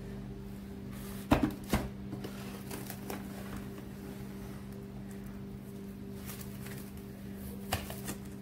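A boxed roll of cling film being handled on a table: two sharp knocks about a second and a half in, then faint crinkling as the plastic wrap is pulled off and stretched over a plastic mixing bowl, with another small knock near the end. A steady low hum runs underneath.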